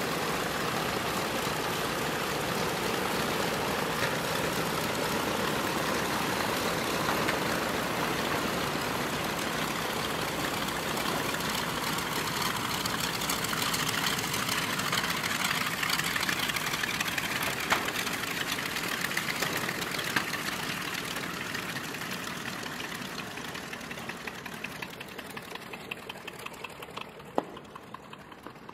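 North American B-25J Mitchell's twin Wright R-2600 Cyclone 14-cylinder radial engines running as the bomber taxis away. The sound holds steady for about half the time, then fades gradually as the aircraft moves off.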